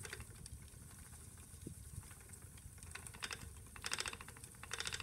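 A 1900s wooden spinning wheel running: a steady low rumble, with bursts of quick clicking rattle about once a second in the second half.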